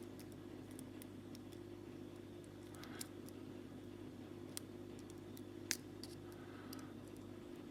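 Faint, scattered ticks and clicks of a metal lock pick and tension wrench working the pin stack inside an all-brass padlock, one sharper click about three quarters of the way through, over a steady low hum.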